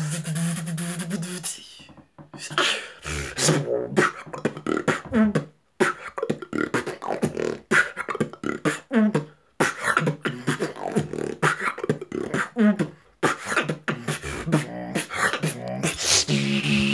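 Freestyle beatboxing: a held hummed bass note to open, a brief pause, then fast rhythmic percussive mouth sounds mixed with short sliding hums, and another held hummed note near the end.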